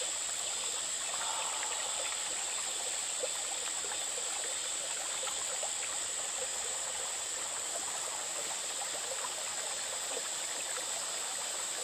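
Steady rush of a bush creek, with a continuous high-pitched insect drone over it.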